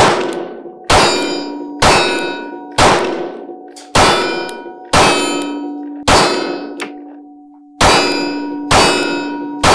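Springfield Hellcat Pro 9mm pistol firing Wolf ammunition at a steady pace of about one shot a second, ten shots with a slightly longer gap about two-thirds of the way through, each shot followed by ringing metal from a struck target. The pistol keeps cycling shot after shot without a malfunction.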